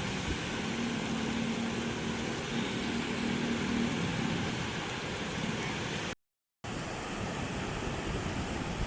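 Sea surf pounding the shore with gusty wind, a steady rushing noise. It breaks off briefly about six seconds in and then resumes.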